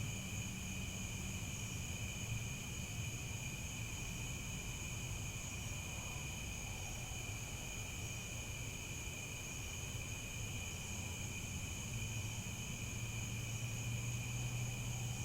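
Crickets chirping in a continuous, even chorus of high-pitched trills, over a steady low hum.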